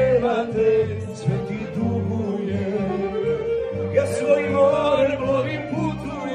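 A man singing into a handheld microphone over instrumental backing, holding long sung notes.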